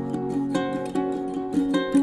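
Background music: a plucked string instrument playing a melody, a new note about every half second.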